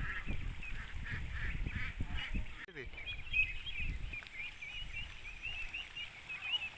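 A flock of young ducks calling, many short high calls in quick succession. The calls come after an abrupt cut about two and a half seconds in; before the cut, similar calls sound over a low rumble.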